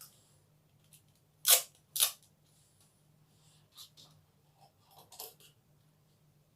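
Adhesive tape pulled off the roll in two short, loud rips about half a second apart, followed by a few quieter crackles of tape and paper being handled.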